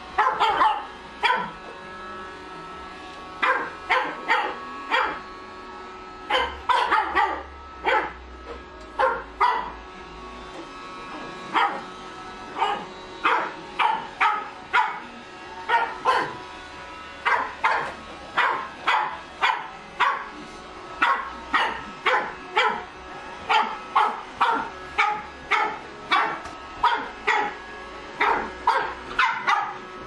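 Pug puppy barking over and over, dozens of sharp, high-pitched barks in quick runs broken by a few short pauses. A robot vacuum cleaner runs with a faint steady hum underneath.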